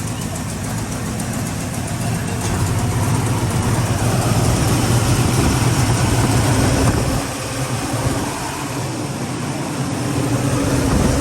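Carbureted V8 of a Chevrolet Monte Carlo SS running steadily at idle, just after a one-way check valve was fitted in its fuel line, left running to check for fuel leaks. It grows a little louder a couple of seconds in, dips briefly about two-thirds of the way through, and rises again near the end.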